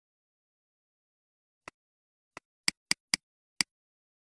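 Computer mouse clicking: six sharp clicks with silence between them, the first two faint and the rest louder and in quick succession.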